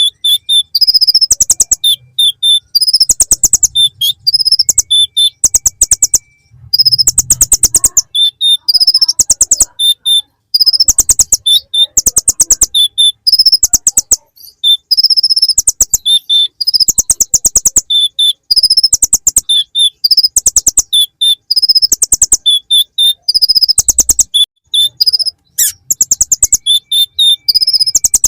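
Konin (kolibri ninja, a sunbird) singing a loud, fast rattling trill with sharp high chirps, worked through with bar-winged prinia (ciblek) style phrases, repeated over and over with only short pauses between phrases.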